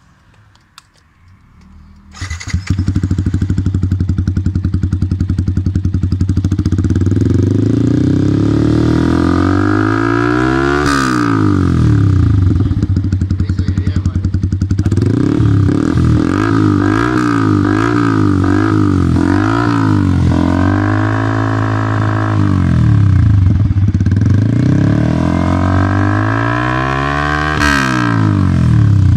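Yamaha R15 V3's 155 cc single-cylinder engine through an SC Project aftermarket exhaust, loud, coming in suddenly about two seconds in and idling, then revved: a long climb and fall, a run of quick throttle blips, a short held rev, and another long climb and fall near the end.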